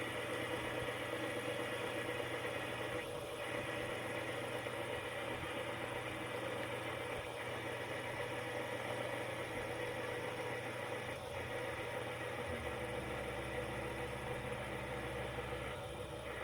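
Fidget spinner whirring steadily on its bearing, with a deeper low hum joining about thirteen seconds in.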